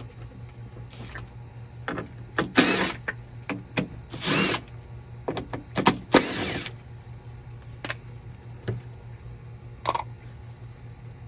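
Someone handling and working on a car headlight assembly to change its bulbs: a few short scrapes, about half a second each, and scattered sharp clicks of plastic parts, over a steady low hum.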